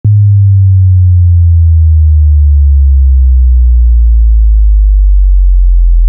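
A loud, low, almost pure electronic tone that slowly sinks in pitch, like a deep synthesized hum.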